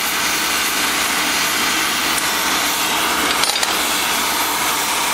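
Oxy-fuel cutting torch flame hissing steadily as it preheats a steel workpiece before the cutting oxygen is turned on.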